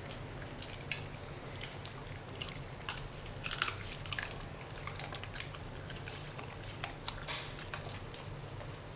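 Small dog chewing raw chicken wing, a run of irregular sharp crunches and crackles of bone, louder about a third of the way in and again near three-quarters through.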